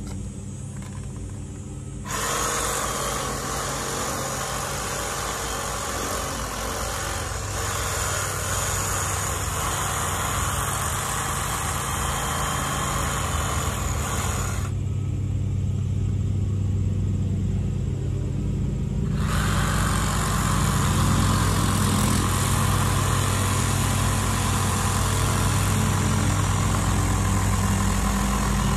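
Battery-powered handheld saw with a long blade running and cutting into the foam of a 3D archery target. A steady motor hum runs throughout. A hiss of cutting starts about two seconds in, drops out for about four seconds a little past the middle, then resumes.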